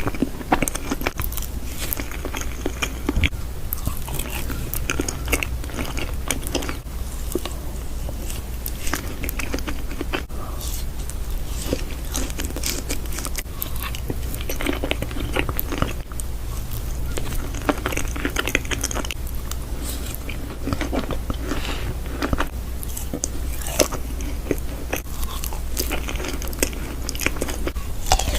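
A person eating close to the microphone: irregular crunching bites and chewing with many small clicks, over a steady low hum.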